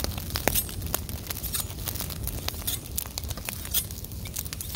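Wood campfire crackling and popping under a wire grill: irregular sharp snaps several times a second over a steady low rumble.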